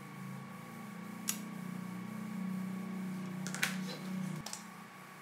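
Low electrical hum from the amplifier's power transformer, stopping abruptly with a click a little over four seconds in, with a few light clicks from probe and wire handling along the way.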